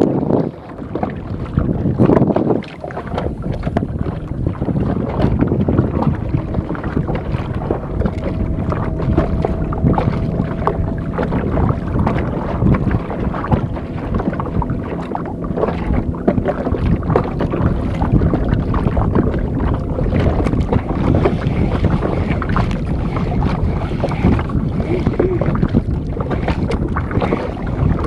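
Small outrigger fishing boat's engine running steadily, with wind buffeting the microphone.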